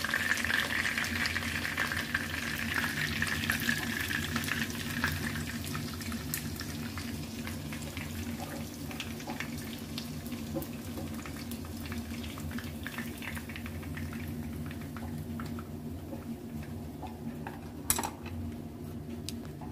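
Breaded chicken fillets sizzling and crackling in shallow frying oil, with wooden chopsticks turning them in the pan; the crackle thins out gradually. A steady low hum runs underneath, and there is one sharp click near the end.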